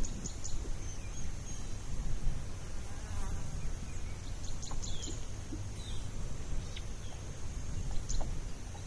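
Insects buzzing with a steady high-pitched drone, a few short bird chirps scattered through it, over a constant low rumble.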